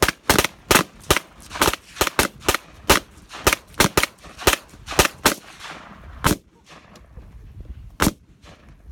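Rapid handgun fire from two shooters at once: a fast run of sharp shots, about three a second, lasting some five seconds, then two lone shots spaced well apart.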